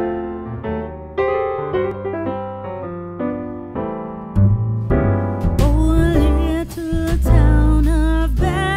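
Background music: an electric piano intro playing chords, joined about four and a half seconds in by heavy bass and a singing voice.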